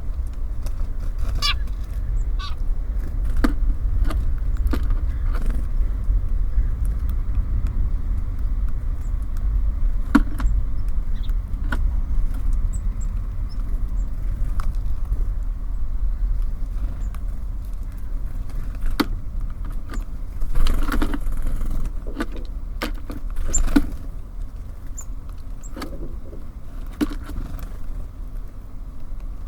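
Steady low rumble of city traffic, with scattered sharp taps and clicks of small birds pecking and landing at a feeder and a few short chirps early on. Two brief louder rustling bursts come about two-thirds of the way through.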